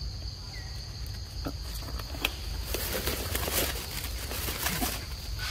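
A steady, high insect drone runs throughout. From about halfway through, for a couple of seconds, there is rustling and crunching in dry leaf litter, with a few sharp clicks.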